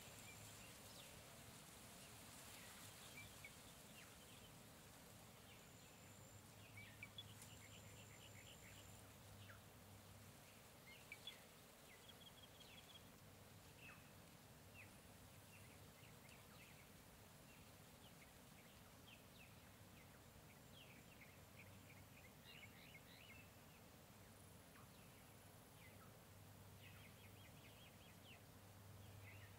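Faint jungle ambience: many short bird chirps and calls scattered throughout over a low, steady background hiss, with a few brief thin high tones.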